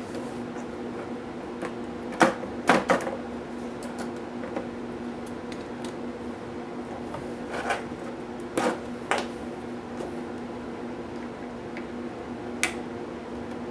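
Sharp clicks and knocks of hard plastic and metal as a Lenovo IdeaPad U460 laptop's parts and tools are handled during disassembly: a cluster about two to three seconds in, a few more around eight to nine seconds, and one near the end. A steady low hum runs underneath.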